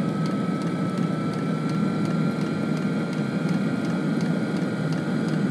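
Webasto Thermo Top water heater burning at its fast-burn rate: a steady thundering combustion roar, with the combustion-air fan's thin whine creeping slightly up in pitch and faint regular ticking from the dosing fuel pump.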